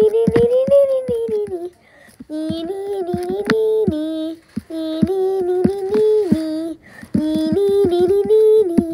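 A boy's voice humming a drawn-out "bruuu" tune, holding long notes that step up and down in phrases of about two seconds with short breaks between them. Light clicks run through the phrases.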